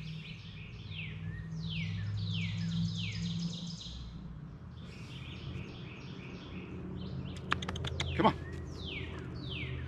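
Songbirds singing: series of quick, high, downward-slurred notes repeated throughout, over a low steady hum. A few sharp clicks come about seven and a half seconds in.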